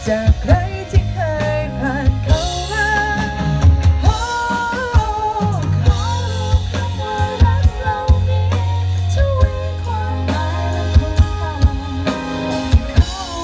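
A singer performing a song with a live band at a sound check: a sung melody over drum kit, bass and guitar, with sharp drum hits keeping a steady beat.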